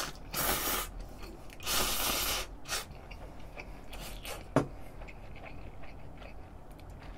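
A person slurping stir-fried cup noodles in two long draws, followed by a few light clicks.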